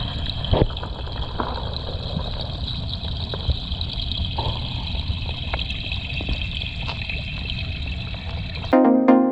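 Lake water sloshing and splashing, with a few sharper splashes, the strongest about half a second in. Electronic dance music cuts in abruptly near the end.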